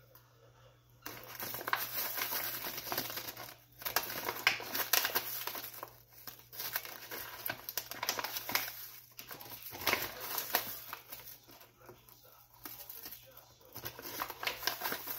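Kraft-paper pouch crinkling as a hand grips and folds its top, in repeated bursts starting about a second in.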